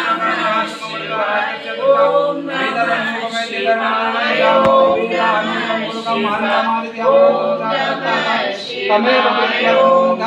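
Sanskrit mantras chanted in a melodic, drawn-out recitation, as for a Rudrabhishek puja, with long held notes. A steady low hum runs beneath it.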